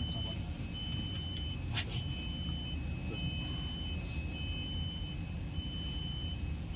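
Electronic warning beeper sounding long, high beeps about once a second, two slightly different pitches alternating in a steady pattern, over a steady low rumble. A single sharp click sounds about two seconds in.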